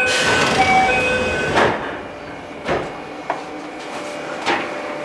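Train car's sliding doors opening: a loud rush of air in the first second and a half, with an alternating two-tone chime over it, then a few sharp knocks.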